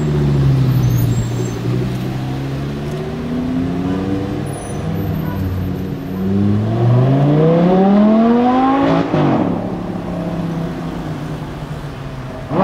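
Audi R8 V10 Spyder's 5.2-litre V10 through a loud QuickSilver titanium exhaust, revving and accelerating. The engine note rises and falls, then makes one long loud climb that breaks off with a sudden drop in pitch about nine seconds in, after which the engine runs at a steadier note.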